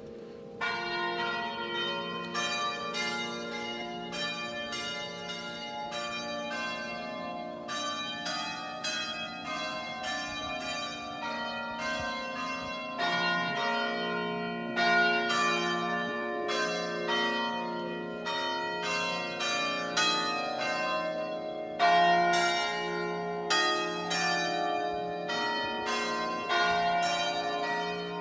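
Bells struck in a long, irregular run of notes, each note ringing on and decaying, with low hum tones sustained underneath.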